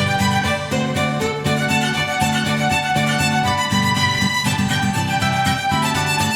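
Background music with a steady beat and a bowed-string lead.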